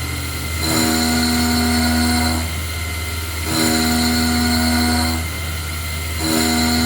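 KX-3 CNC milling machine machining a cast iron flywheel: a steady low hum under a pitched machine whine that switches on for about two seconds and off for about one, over and over, as the mill makes repeated moves.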